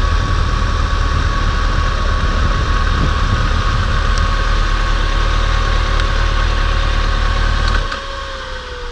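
Motorcycle engine idling steadily, then switched off about eight seconds in, leaving a fainter whine that slowly falls in pitch.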